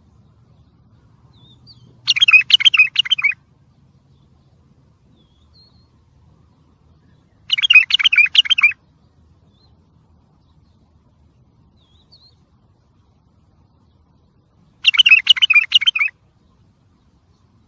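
Wild bulbul singing: three short, rapid warbling phrases, each about a second long, several seconds apart.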